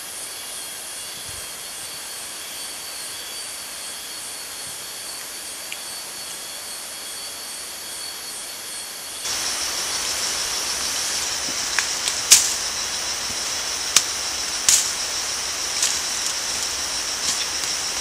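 Tropical rainforest insect chorus: a steady high drone of cicadas and other insects with a faint pulsing buzz above it. About nine seconds in it switches abruptly to a louder, higher drone, with a few sharp snaps and clicks over it.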